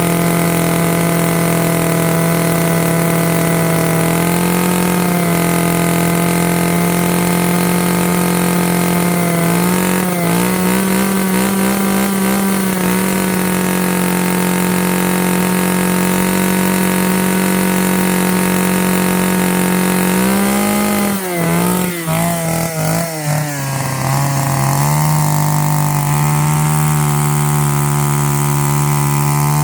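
Two-stroke chainsaw running hard while cutting firewood. Its engine pitch wavers about ten seconds in, then sags and stutters for a few seconds past the twenty-second mark as the chain bites into the wood, before settling to a slightly lower steady note.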